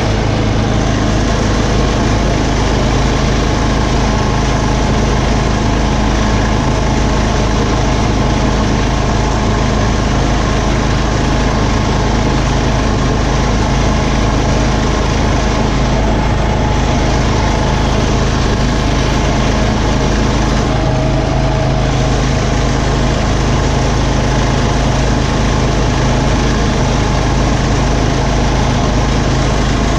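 Garden tractor engine running steadily at a constant speed.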